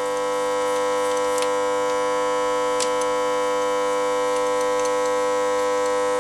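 A steady, even-pitched mechanical hum that does not change. A few faint clicks come as a compression gauge's hose fitting is handled and screwed into a spark-plug hole.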